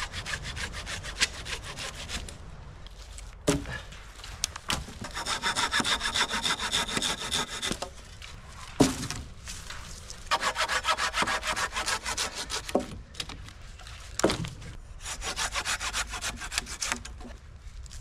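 Hand saw cutting through a pine pole in several spells of quick back-and-forth strokes, with a single sharp knock between spells.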